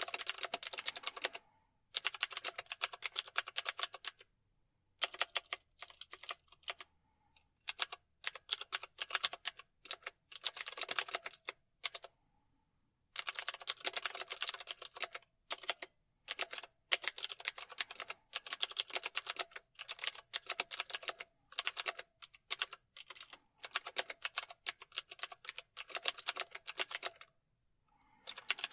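Computer keyboard being typed on in quick runs of key clicks, each run lasting a second or few, broken by short pauses.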